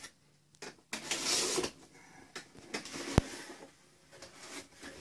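Cardboard subscription box being opened and handled: rustling and scraping, with a longer rasping burst about a second in and a single sharp click a little after three seconds.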